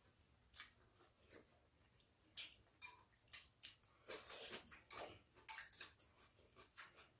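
Faint eating sounds at a meal: a scatter of soft clicks and smacks from chewing and from chopsticks and spoons touching bowls, with a longer noisier patch about four seconds in.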